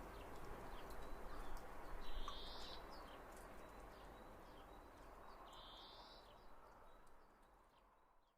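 Spring nature ambience: scattered short bird chirps over a steady background hiss, with a buzzy trill heard twice. The whole fades out near the end.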